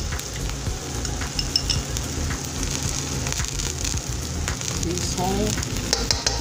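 Sliced onions and chopped garlic frying in oil in a wok, a steady sizzle, with a few clicks of a metal spoon against the pan as the garlic is spooned in and spread.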